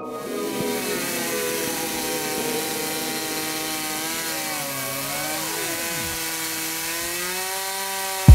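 Chainsaw engine running steadily at high speed. Its pitch dips briefly about four to five seconds in, then recovers.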